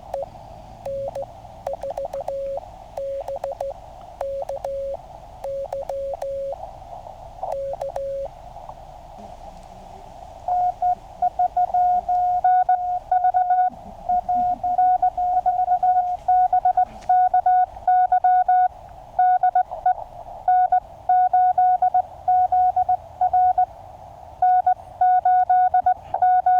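Morse code (CW) tones from a QCX mini QRP transceiver over a band of receiver hiss. For about the first eight seconds a fainter, lower tone keys out characters. From about ten seconds in, a louder, higher-pitched tone keys steadily in Morse rhythm.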